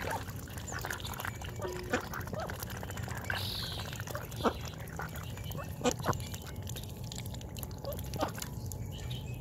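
Ducks dabbling for peas in a water-filled metal bowl: wet slurping and splashing from their bills, with a handful of sharp clacks as bills knock against the bowl, the loudest about four and a half and six seconds in.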